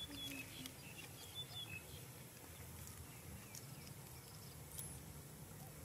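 Quiet outdoor ambience with a low steady hum and a few faint, short high chirps, clustered in the first two seconds and once more near the end.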